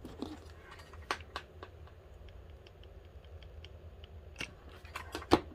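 Hot glue gun being handled and used: a few clicks as it is picked up, then a quick run of faint regular ticks as the trigger is squeezed to feed glue, and a sharp knock near the end, the loudest sound.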